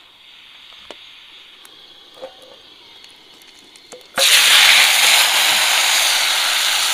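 A portable gas burner hisses softly, with a few light knocks of a pan. About four seconds in, leafy greens are tipped into a pan of hot oil and it breaks into loud sizzling that carries on, slowly easing.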